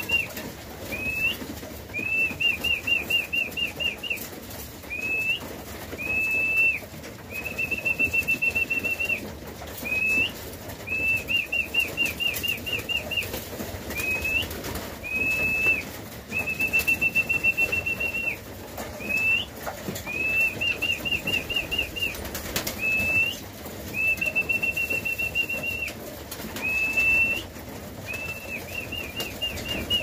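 A songbird sings a clear whistled song that repeats every few seconds: a short upward-hooked note, then a fast run of repeated notes or one held note. Under it, racing pigeons flap their wings and shuffle in a loft.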